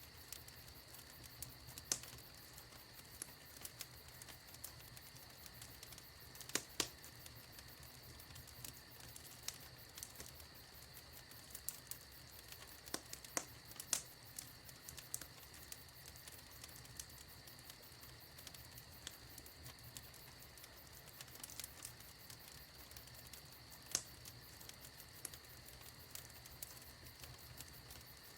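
Wood fire in a fireplace crackling: a steady faint hiss with small irregular snaps and, now and then, a louder sharp pop.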